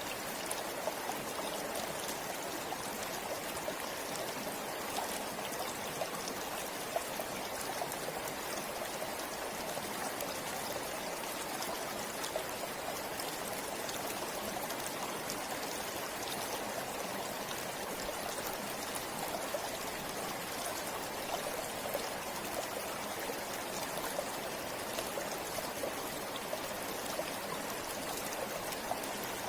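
Forest river flowing steadily, water rushing and trickling over stones, with many small splashes and droplets.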